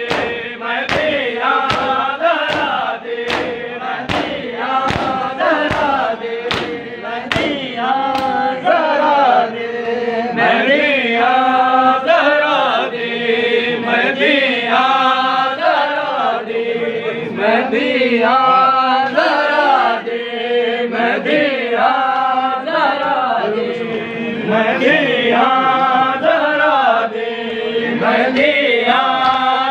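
A group of men chanting a noha, with evenly timed sharp strikes of matam (hands beating on chests) keeping the beat. The strikes are clearest in the first several seconds.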